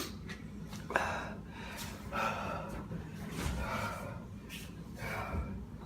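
A person breathing hard in a run of heavy, gasping breaths, about one a second, in reaction to the burn of a superhot chili pepper.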